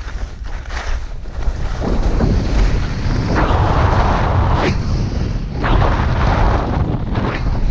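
Wind buffeting the microphone: a loud low rumble with rushing noise that swells about two seconds in and comes in several surges.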